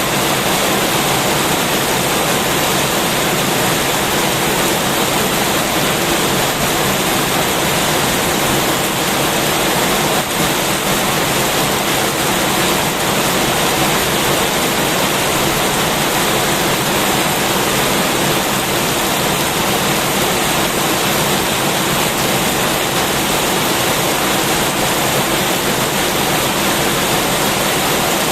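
Heavy rain falling, a dense, steady hiss with no letup.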